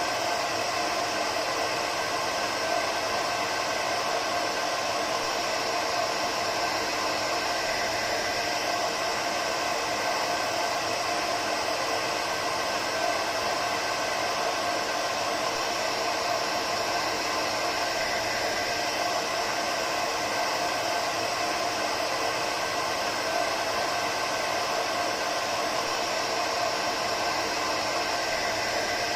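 Hair dryer running steadily: a constant whooshing blow of air with a steady motor hum, unchanging throughout.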